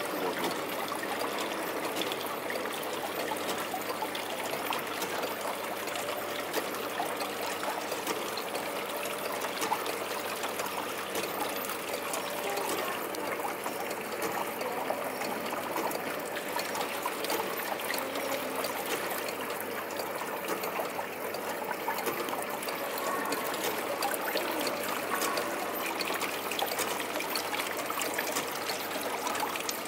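Water trickling steadily in a model stream and water-wheel basin of a mechanical nativity scene.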